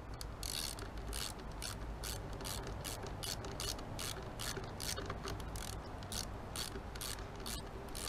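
Small hand ratchet clicking in short, even strokes, about two to three a second, as it drives in the screws holding the recoil starter on top of a Mercury four-stroke outboard. A steady low rumble runs underneath.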